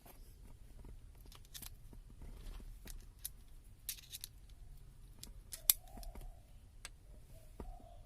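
Irregular small sharp clicks and snips of hand work, with one louder click about two-thirds of the way through. A dove coos softly in the background in the second half.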